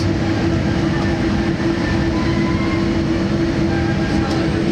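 Steady rumble of a Boeing 787 airliner taxiing, with a constant low hum running through it.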